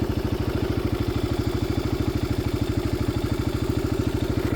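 Vehicle engine running at low revs, a steady, rapid, even pulsing.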